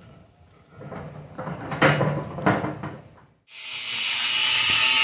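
A few knocks and clatters, then a loud, steady hiss that starts suddenly about three and a half seconds in.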